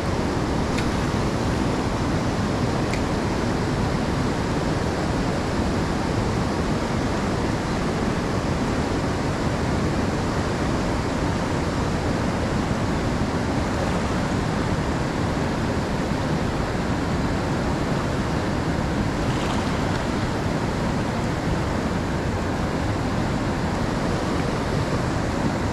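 River rapids rushing steadily, a constant noise of water with no let-up.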